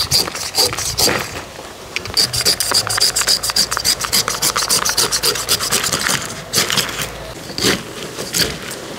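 A knife scraping and cutting the rough, spiky rind off a tender green jackfruit in quick repeated strokes, with short pauses between bouts.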